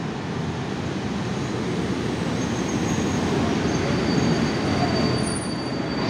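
Passenger train rolling through the station, a steady rumble of wheels on rail that grows slowly louder. Thin high squealing tones from the wheels or brakes come in from about halfway, one of them held steady.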